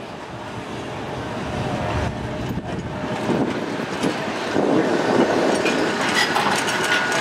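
Open-top Blackpool Boat tram running along street track and passing close by, its wheels rumbling and clattering on the rails, growing steadily louder as it draws alongside.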